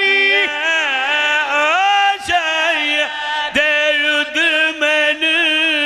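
A man chanting a long, drawn-out sung line of devotional recitation, the held notes wavering and sliding in pitch, with short breaks about two and three and a half seconds in.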